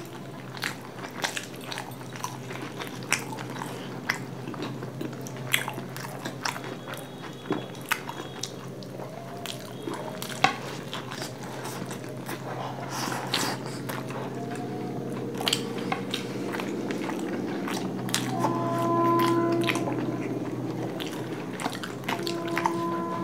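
Close-miked chewing and biting of large soft steamed momos, eaten by hand: irregular mouth clicks and smacks throughout.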